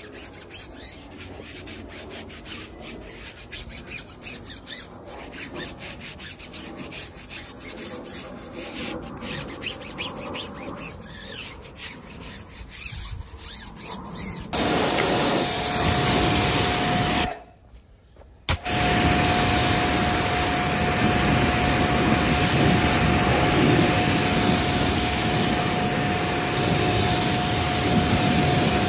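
A stiff brush scrubbing an alloy wheel with a rapid, uneven scratchy rubbing. About halfway through, a pressure washer starts, a loud steady motor hum with the hiss of spray. It stops for about a second, then runs on.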